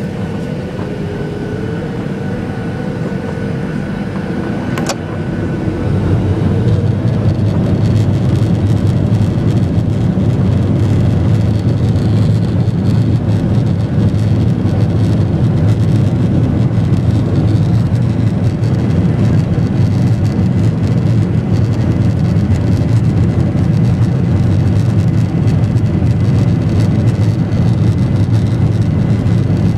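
Jet airliner's engines heard from inside the cabin during the takeoff roll: a whine over a rumble at first, then about six seconds in the noise steps up to a steady loud roar as the engines reach takeoff power. A single click sounds about five seconds in.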